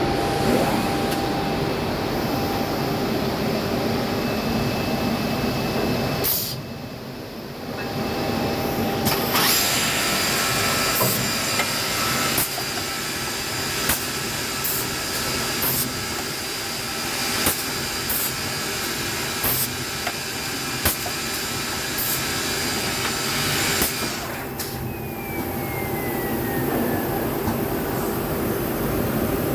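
Masterwood TF600S CNC drilling machine running steadily with a high whine. Through the middle stretch it makes a string of short sharp drilling strokes, roughly one a second, as it bores a small piece. About three-quarters through, a whine falls in pitch and the machine settles back to a steady run.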